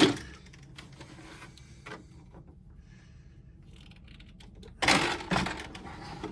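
Hands handling the plastic body and body pins of an RC rock crawler: scattered light clicks and taps, then a louder clatter of knocks about five seconds in.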